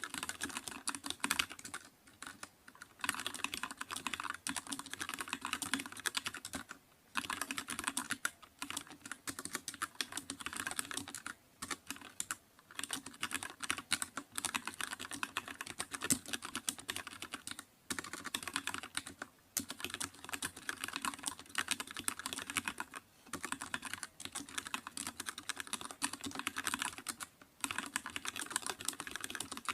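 Continuous typing on a computer keyboard: fast runs of key clicks, broken by brief pauses every few seconds.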